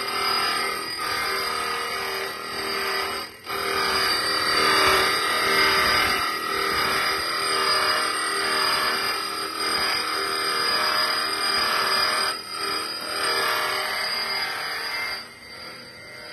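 Gem shaping machine running, its diamond wheel wet-grinding a crystal heart blank under water coolant: a steady motor whine with grinding noise that swells and fades in a regular pulse, about once every two-thirds of a second, as the turning piece works against the wheel. The sound drops out briefly about three seconds in and again near the end.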